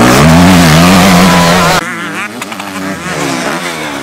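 Motocross bike engine revving close by, its pitch rising and falling as the rider works the throttle. About two seconds in, the sound cuts to a quieter, more distant dirt bike revving up and down.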